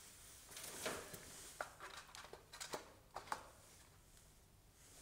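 Faint footsteps and handling noises: a brushing rustle, then several sharp light knocks and clicks over the first three and a half seconds, as a person steps up and handles a wooden mouse trap.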